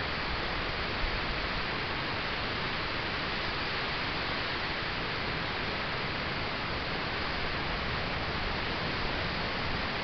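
Steady, even hiss from a trail camera's microphone, its own electronic noise with no distinct sound in it.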